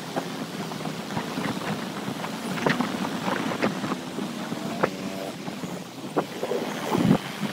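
Traffic noise and wind on the microphone during a motorbike ride, with several sharp knocks and a short pitched tone about five seconds in.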